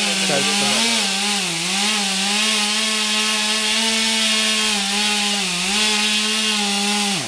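Two-stroke chainsaw held at high revs cutting into a tree trunk, its pitch sagging briefly a couple of times under load, then dropping off near the end as the throttle is released.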